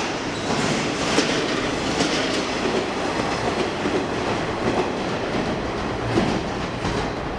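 JR West KiYa 141 diesel track-inspection railcar passing close by, a steady loud running rumble with the wheels clacking over rail joints several times.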